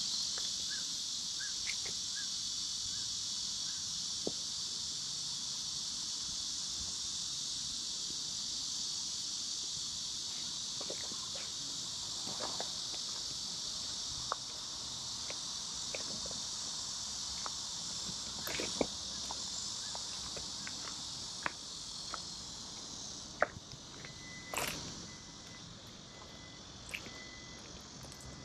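Steady high-pitched chorus of insects in the trees, fading toward the end, with scattered light footsteps and clicks on the dirt ground.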